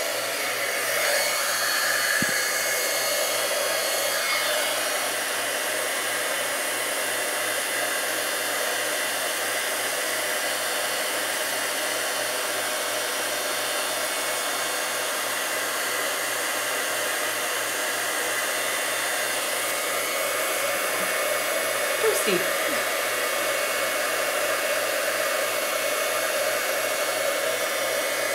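Embossing heat gun running steadily: a constant rush of blown air with a faint high whine, heating embossing powder on a stamped card to melt it.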